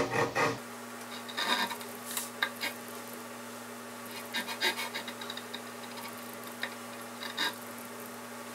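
Narrow-bladed pull saw cutting into a mahogany bed-post turning at the seam below its cannonball ball, in short, irregular strokes as the kerf is worked around the circumference.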